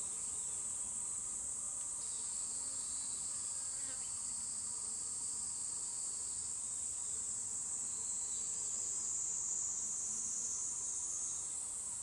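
A steady, high-pitched chorus of insects such as crickets or cicadas, with a second, lower insect song fading in and out.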